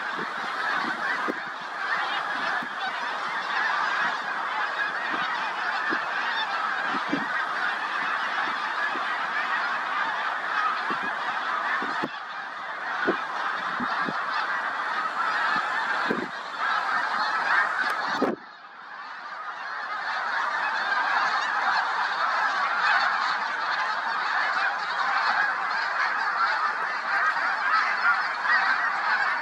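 A large flock of snow geese calling overhead, a dense unbroken chorus of honking. About 18 seconds in the chorus drops away suddenly, then swells back over the next two seconds.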